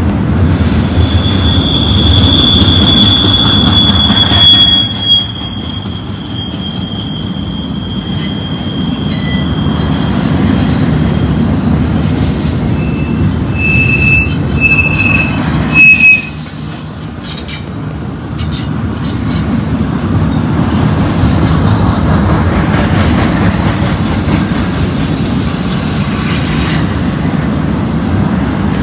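Double-stack intermodal freight train passing close by, its cars' steel wheels rumbling continuously on the rail. A long high wheel squeal sounds in the first few seconds, a few short squeals follow around the middle, and there are two brief loud thumps, about five and sixteen seconds in.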